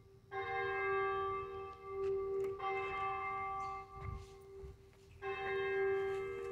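A single church bell tolling, struck three times about two and a half seconds apart, each stroke ringing on until the next.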